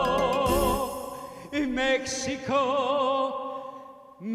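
Male singer in a full operatic style with wide vibrato, holding a long high note that ends about a second in, then singing "Mexico" again over backing music.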